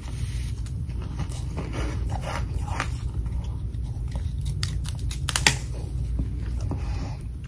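Mouthfuls of powdery humidifier freezer frost being bitten and chewed: a run of crisp crunches, the sharpest about five and a half seconds in, over a steady low hum.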